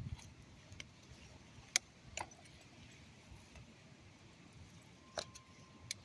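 Metal ID tag and leash clip on a small dog's collar clinking a handful of times as the dog moves, the sharpest clink a little under two seconds in, over faint outdoor background noise.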